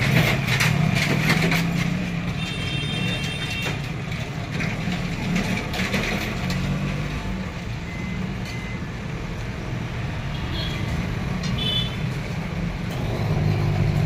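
Microwave oven running with its steady low transformer hum, which fades somewhat mid-way and swells again near the end. A few sharp clicks come in the first two seconds.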